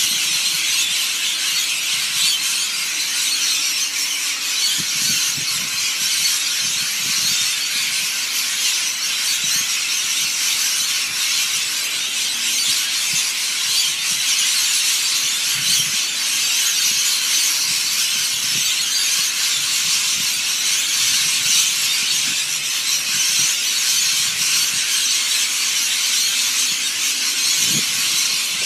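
A large flock of birds calling all at once: a dense, unbroken chorus of shrill screeching.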